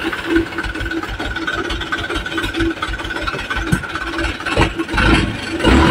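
Light cargo truck's engine running steadily at low revs as the truck crawls through deep ruts, with a few knocks about two-thirds of the way through and a louder surge near the end.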